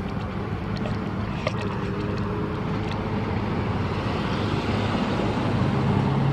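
Road traffic: a motor vehicle engine running with a steady low hum and tyre-and-road noise, growing slightly louder toward the end.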